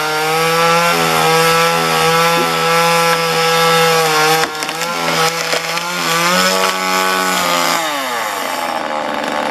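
Gas chainsaw running at full throttle, cutting through a large tree limb. Its note dips briefly about four and a half seconds in. About eight seconds in the throttle is released and the engine winds down toward idle.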